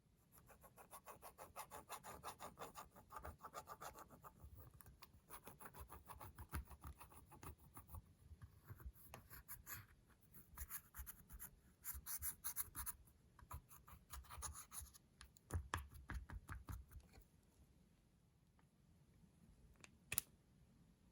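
Rapid, rhythmic scratching and clicking from slime and makeup being stirred and scraped together, faint, with a few louder stretches; it dies down near the end and a single sharp click follows.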